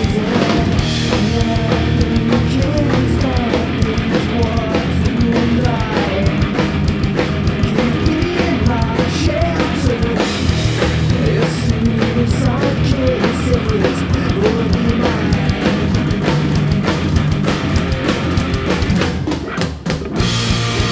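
A heavy rock band playing live and loud, with a drum kit under dense, distorted-sounding music and a melody line that bends in pitch. About a second before the end the music drops out for a moment, then the band crashes back in.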